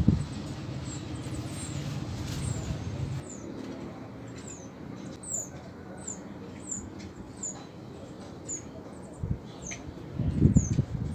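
Southern house wren at its nest box giving a run of short, high, thin falling notes, about one or two a second, starting a few seconds in. Low rumbling bursts, the loudest sounds, come near the start and near the end.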